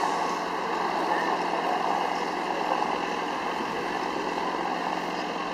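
Farm tractor's engine running steadily.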